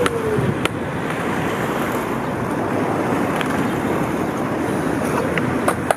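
Skateboard wheels rolling over stone paving, a steady rolling noise, with a sharp click near the start and another near the end.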